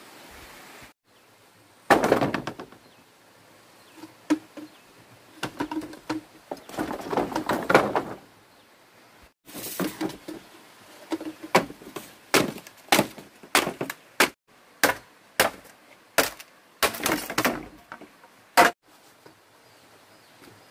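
Bamboo poles knocking and rattling as they are handled, then a machete chopping green bamboo: about a dozen sharp strikes, one to two a second.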